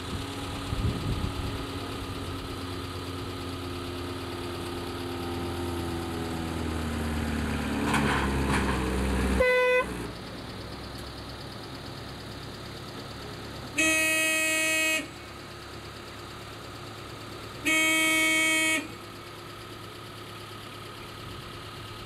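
A vehicle engine running, its pitch sinking slowly over several seconds as it grows louder, then cutting off abruptly about nine seconds in. Then a car horn sounds two steady single-note honks, each just over a second long, about four seconds apart.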